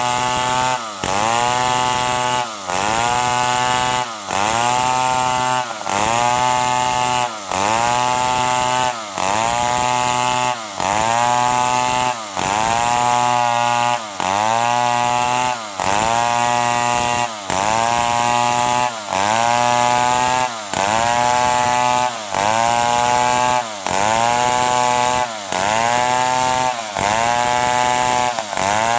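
Stihl 070 two-stroke chainsaw running under load while cutting wood, its engine note sagging and recovering in a regular cycle about every second and a half.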